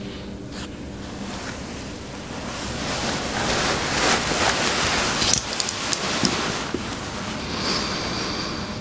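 Steady rushing noise, like wind or surf, that swells through the middle and eases off again, with a few sharp clicks about five to six seconds in.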